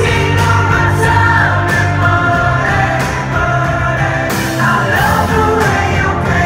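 A live rock band playing on stage: the lead singer sings into the microphone over drums and keyboards.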